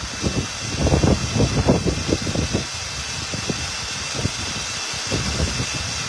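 Electric countertop blender running steadily at full speed, puréeing a banana and milk drink.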